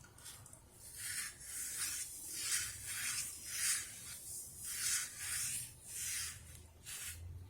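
A run of rhythmic swishing, rubbing strokes, about two a second, with a brief pause midway.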